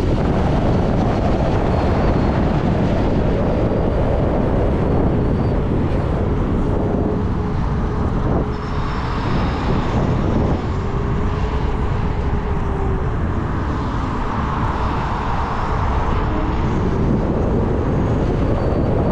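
Steady wind rush over the microphone of a rider at speed on an electric motorcycle, with a faint whine that rises and falls a few times.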